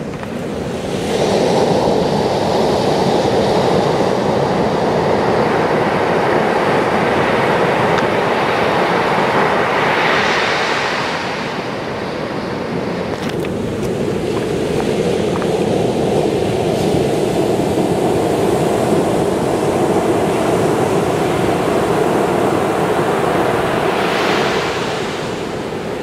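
Ocean waves breaking and washing up a sandy beach: a continuous rushing surf that swells and eases, with louder hissing surges about ten seconds in and near the end.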